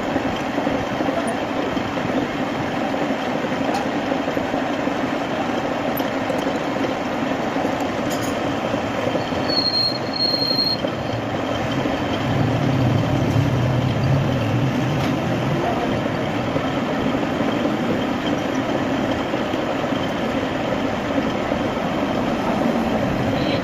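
Metal lathe running as a twist drill in the tailstock chuck bores into the end of a spinning steel crane pin, a steady grinding machining noise. A brief high squeal comes about ten seconds in.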